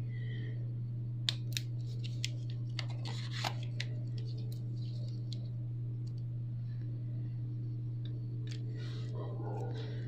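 Light plastic clicks and a brief scrape as a Samsung Galaxy J2's touch display is pressed onto the phone's frame by hand, a few sharp clicks in the first four seconds. A steady low electrical hum runs underneath throughout.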